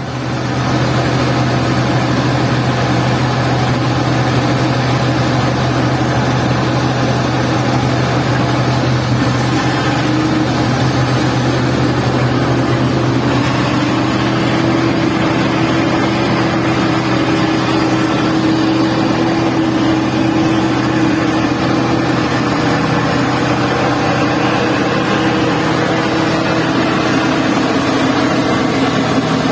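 Hydraulic excavator's diesel engine running steadily, with a higher tone that rises a little in pitch about ten seconds in and then holds.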